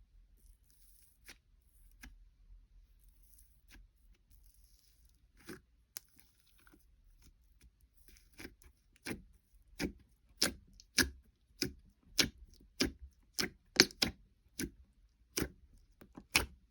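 Slime being pressed and squished by hand, giving faint crackles at first. About halfway in it turns to a steady run of loud, sharp popping clicks, roughly two every second or a little less.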